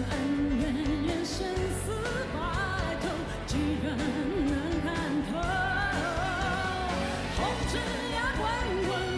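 A woman singing a Mandarin pop song live over full band accompaniment, one sung line throughout.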